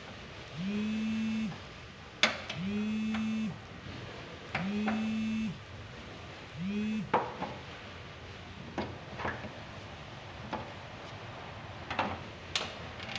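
A pitched tone repeating four times, each about a second long and every two seconds, sliding up briefly at its start and then holding steady; it stops about seven seconds in. After it, and once between the tones, come scattered sharp clicks and light metal knocks from hands working on the fuel tank's sender unit.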